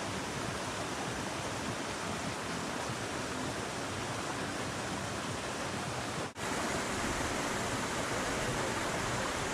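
Steady rushing of flowing creek water. It drops out for an instant about six seconds in, then resumes slightly louder.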